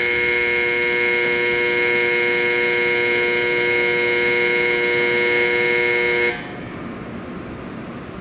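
A steady electronic warning tone of several fixed pitches sounds at a Shinkansen platform for about six seconds and then cuts off suddenly, leaving a low rumble.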